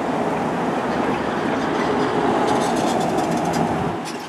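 A vehicle passing close by on the street, a loud steady rumble with some engine hum that fades about four seconds in.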